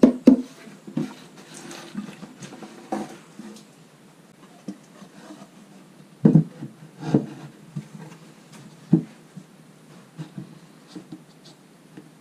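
Wooden knocks and rubbing as the domed lid of an old-pine treasure chest is handled and set onto its box: a few sharp knocks, the loudest a little past halfway, between quieter scraping.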